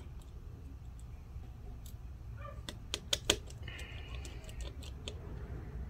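Scattered light clicks and taps of a precision screwdriver against small screws and the metal chassis as the speaker screws of a 2019 13-inch MacBook Pro are backed out, with a cluster of sharper clicks about three seconds in over a low steady hum.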